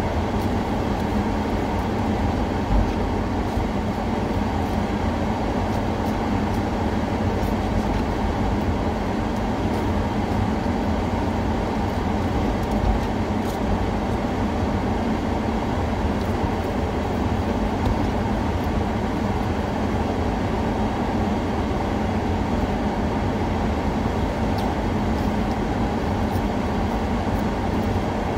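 Steady low rumble that holds the same level throughout, with no distinct knocks or changes.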